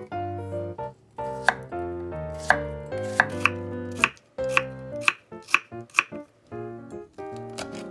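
Kitchen knife chopping green onion and then slicing an onion on a wooden cutting board. The blade knocks sharply against the board about a dozen times, at an uneven pace of roughly one to two strokes a second.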